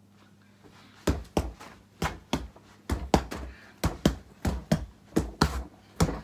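Fists punching a free-standing Gallant punch bag in quick flurries, dull thuds about three a second, starting about a second in.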